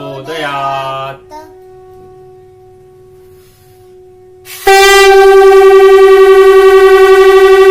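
A voice chants the last word of a Sanskrit mantra over a steady held tone. About four and a half seconds in, a conch shell (shankh) is blown: one long, loud, steady note with a slight rapid waver.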